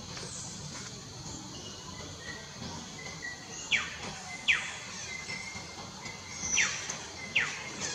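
Four sharp chirps, each a quick whistle falling steeply in pitch, in two pairs about three quarters of a second apart, the first pair about halfway through. Behind them is steady outdoor background with faint high insect-like tones.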